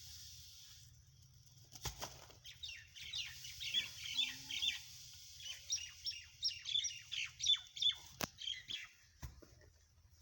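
Small birds chirping and twittering in quick high notes for several seconds. Three sharp knocks stand out, the first just before the chirping starts and two near its end.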